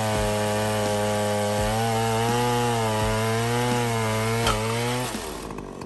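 Holzfforma G070 105.7 cc two-stroke chainsaw running at high revs as it cuts through a maple round, its engine note steady with a slight waver. The engine drops off about five seconds in.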